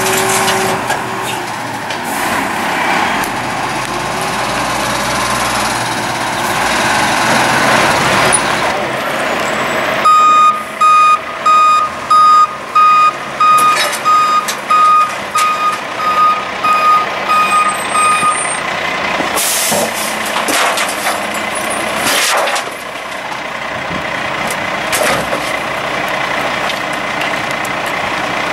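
Acco rear-loader garbage truck's diesel engine running as it moves, then its reversing beeper sounding a steady series of high beeps for about eight seconds. After the beeps come sharp hisses typical of air brakes being set as the truck stops, and the engine settles to idle.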